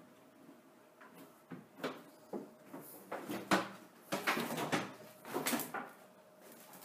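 Irregular knocks, scrapes and rustles of someone moving through a cluttered room and handling debris, bunched in the middle few seconds, over a faint steady hum.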